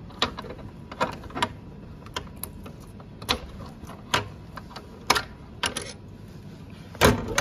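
Keys and a door lock being worked: a string of irregular clicks and clacks, with a louder knock near the end.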